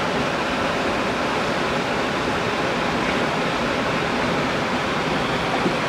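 Mountain river water rushing over rocks: a steady, unbroken rush of water.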